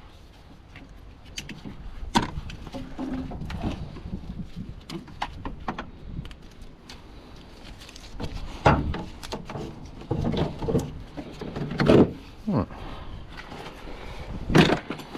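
Irregular clicks and knocks of hands and tools working on plastic clips and parts on top of a car's gearbox. The loudest knocks come in the second half.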